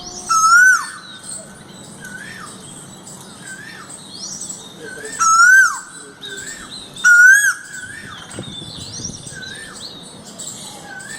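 Birds calling: a short rising-and-falling call repeats about every one and a half to two seconds, and three louder, higher calls with quick sweeping notes come about half a second, five seconds and seven seconds in.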